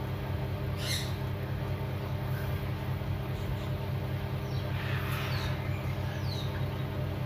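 Steady low hum with a few faint, high, falling peeps from a blue-eyed cockatoo chick calling from inside its pipped egg.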